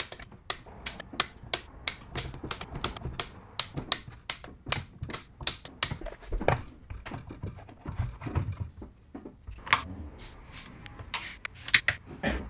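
Ratchet wrench clicking as bolts on a ZF6HP26 automatic transmission are tightened: irregular runs of sharp clicks, several a second, with short pauses.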